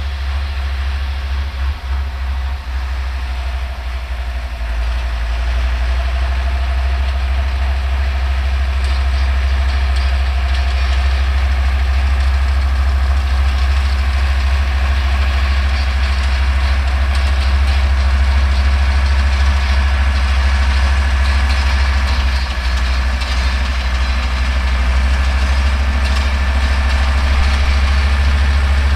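Older Deutz tractor's diesel engine running steadily under load while it pulls and drives a New Holland round baler, whose pickup and chamber add a busy mechanical clatter. The sound grows louder over the first several seconds, then holds steady.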